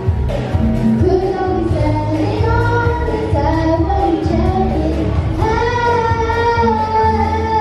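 Background music: a song with a high female singing voice carrying a smooth melody over a steady bass line.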